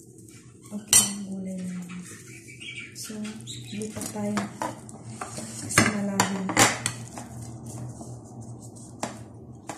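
Metal spoon clinking and scraping against a glass mixing bowl and plates as spring-roll filling is scooped out: several sharp clinks, the loudest about a second in and three close together around six seconds in.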